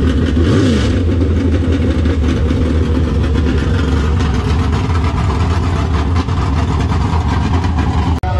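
Dirt-track modified race car's freshly rebuilt V8 running at a loud, lumpy idle as the car pulls away, with a short rise in revs about half a second in. The sound breaks off sharply just before the end.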